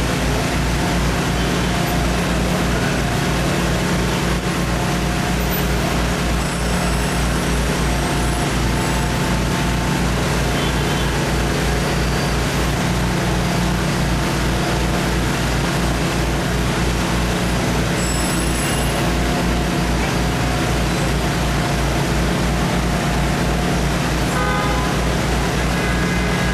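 A large engine running steadily at an even speed, with a low, regular throb, against street traffic noise. A short horn-like tone sounds near the end.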